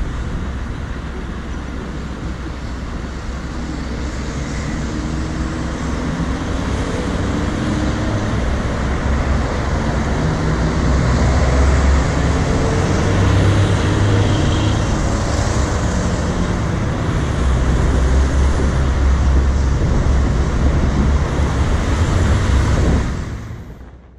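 City road traffic at an intersection: passing cars and a minibus, engines and tyre noise over a heavy low rumble, with faint engine tones rising and falling as vehicles go by. It fades out near the end.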